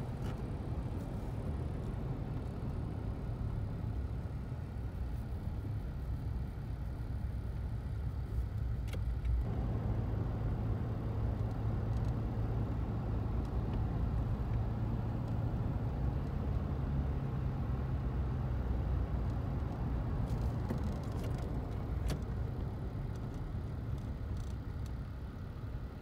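Car driving: steady engine hum and road noise. About nine seconds in the higher road noise drops away, leaving a steadier low hum.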